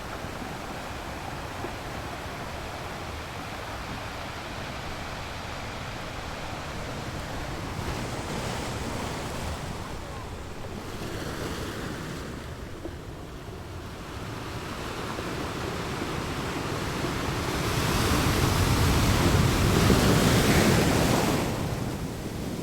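Sea surf washing in waves, with wind on the microphone. A bigger wave rushes in near the end, louder for a few seconds before it falls away.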